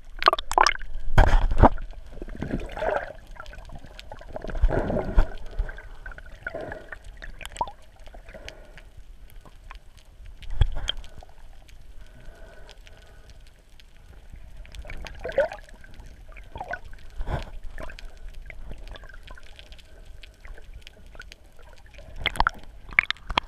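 Ocean water heard from a camera held underwater: muffled sloshing and gurgling with irregular clicks and several heavier thumps, the loudest about a second in and again near five and eleven seconds.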